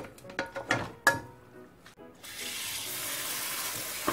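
A metal wok knocks and clanks several times against a plastic strainer and steel sink as bean sprouts are tipped out to drain, with short metallic rings. About two seconds in, a faucet sprayer starts, a steady hiss of water rinsing the sprouts.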